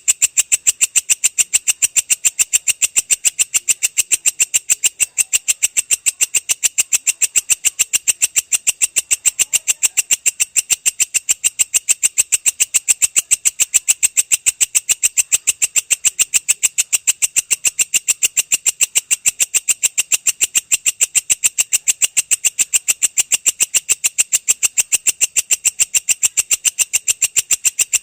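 Belalang kecek katydid stridulating in a long, unbroken call: a rapid, even train of sharp, high-pitched ticks, about six a second.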